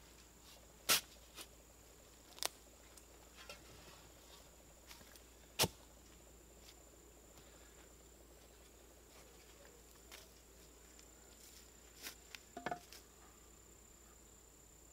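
Scattered sharp knocks from a long steel bar tamping soil around a wooden post set in its hole. The loudest come about a second in, at two and a half seconds and near five and a half seconds, with a few quicker ones near the end. A thin, steady high-pitched whine runs underneath.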